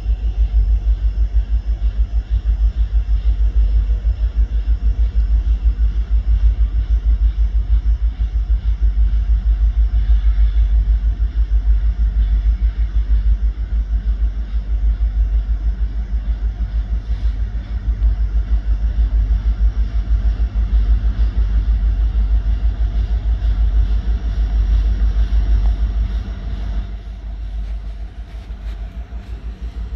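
Deep, steady rumble of an approaching Norfolk Southern freight train's diesel locomotives, pulsing evenly; it grows quieter near the end.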